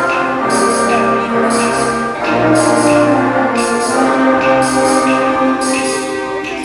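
School concert band playing held brass and woodwind chords, with a bright, high percussion stroke about once a second.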